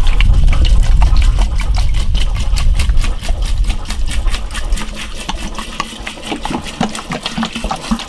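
75% alcohol pouring from a bottle into a glass jar, splashing and glugging in a fast, even rhythm that grows quieter in the second half.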